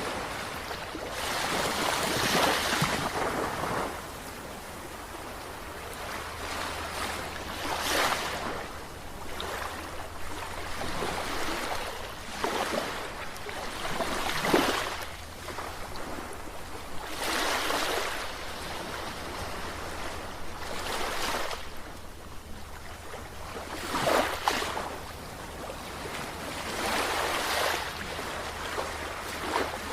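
Sea waves breaking, a surge of rushing water about every three to four seconds that rises and falls away.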